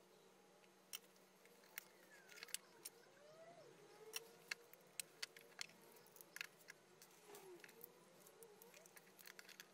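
Near silence with faint, scattered small clicks and taps of small metal parts being handled: a speaker binding-post terminal and its nut being fitted by hand.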